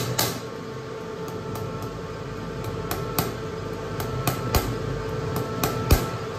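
Diesel injector test bench running with a steady hum, with a few sharp clicks starting about halfway through.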